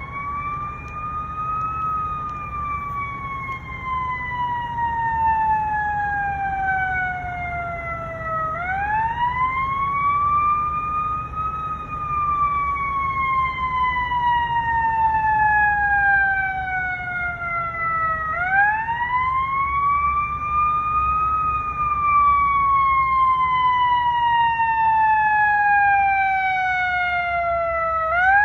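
Fire truck siren wailing in three slow cycles, each rising over about two seconds and then falling slowly over about seven, over a low rumble. It grows louder as the truck approaches.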